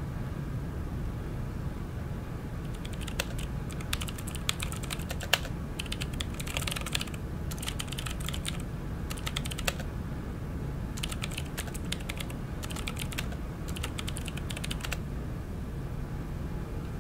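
Typing on a computer keyboard: rapid key clicks in short bursts with brief pauses between them, over a steady low rumble.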